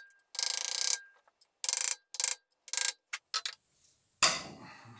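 Pliers biting and twisting on a stuck metal-cased front crankshaft seal in a V8's timing cover: a string of short, harsh metal-on-metal rasps. A single sharp clank comes about four seconds in.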